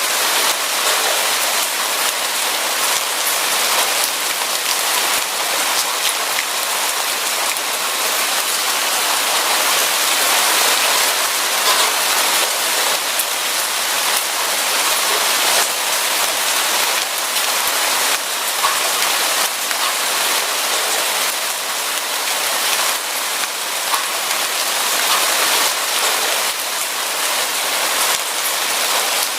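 Steady rain, a dense patter of many small drops falling without let-up; no thunder in this stretch.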